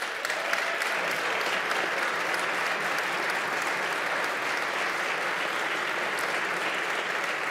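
A large audience of legislators applauding, a steady dense clapping that starts abruptly and fades near the end.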